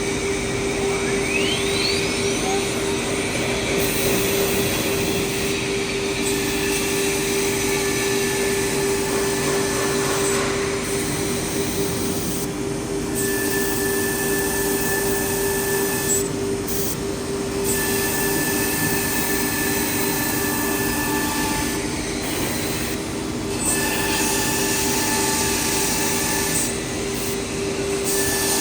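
DA48-2130W CNC nesting machine running under test: a steady high spindle hum with hiss. A whine rises in pitch about a second in, and a higher tone switches on and off several times.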